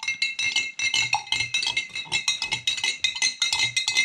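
Metal spoon stirring salt into hot water in a glass jar, clinking rapidly against the glass at several strikes a second, the jar ringing after each strike. Terribly loud stirring.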